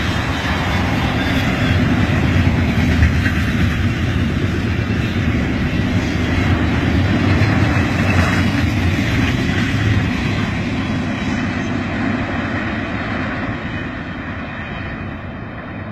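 Fast freight train rushing past at speed: a steady rumble and rush of wheels on rail, fading gradually over the last several seconds as the train pulls away.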